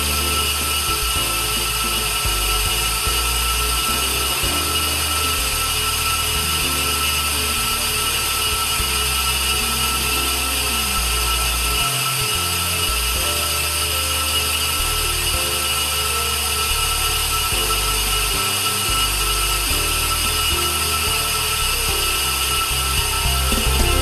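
IM 202D on-car brake disc lathe skimming a brake disc, its cutting tips working both faces of the spinning rotor at once. The cutting noise is steady and even, with a constant high whine.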